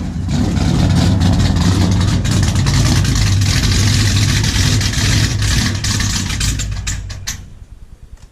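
Procharger-supercharged 392 Hemi V8 of a Dodge Challenger SRT8 running loud just after being started on freshly fitted 80-pound injectors, then stalling about seven seconds in.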